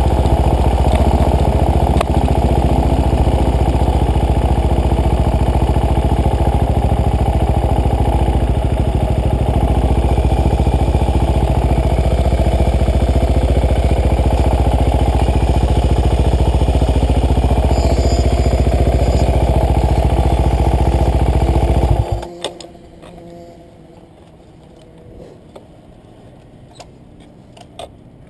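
Supermoto motorcycle engine running steadily, then shut off about 22 seconds in; after it stops, only a few faint clicks.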